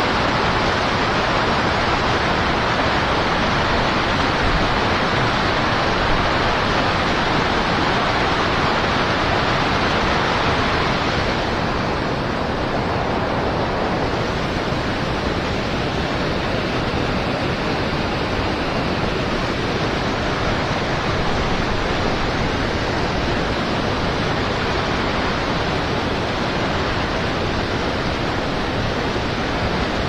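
Steady rush of white water crashing down through the river, an even noise that shifts slightly in tone about eleven seconds in.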